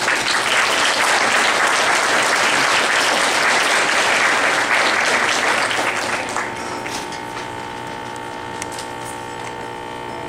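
Audience applause for about six seconds, dying away after that. A steady electrical hum runs underneath.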